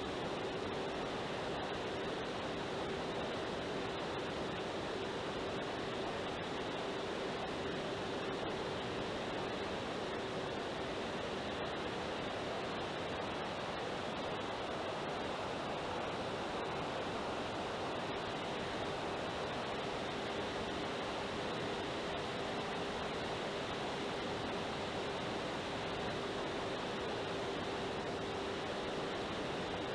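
Steady rush of air over the onboard camera of a FlightLine Spitfire 1600 mm RC plane in flight, with a steady hum from its electric motor and propeller.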